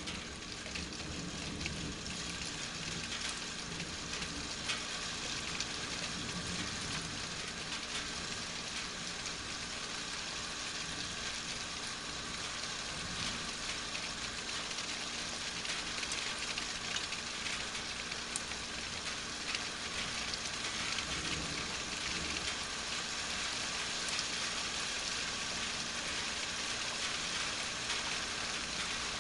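Steady rain falling during a thunderstorm: an even patter made up of many small drop ticks.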